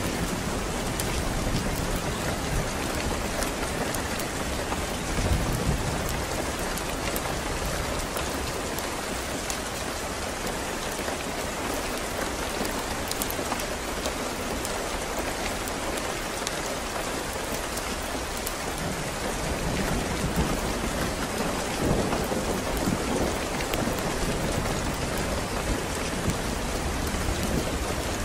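Steady heavy rain falling, a dense even hiss of drops. Low rolling thunder rumbles under it at the start, dies down through the middle and builds again in the last third.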